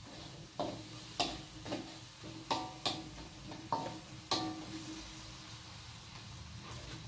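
Metal spatula stirring and scraping in a steel wok, clanking against the pan about seven times in the first four and a half seconds, each knock followed by a brief metallic ring, then quieter stirring. A faint sizzle of the seasoning liquid cooking down with palm sugar runs underneath.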